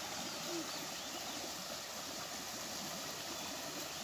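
Steady outdoor background hiss, with no clear single event standing out.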